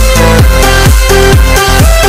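Electronic dance music with a steady kick drum, a little over two beats a second.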